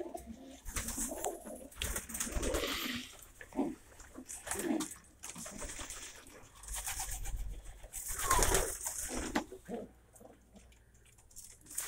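Domestic pigeons cooing in a loft, with short low calls repeating on and off. Several louder noisy bursts break in, the loudest about eight seconds in.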